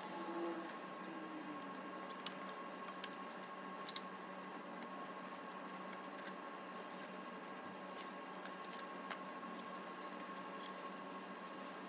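Faint, scattered clicks and taps as a timing belt is worked by hand onto the cam pulleys and tensioner, over a steady low hum and a thin high whine.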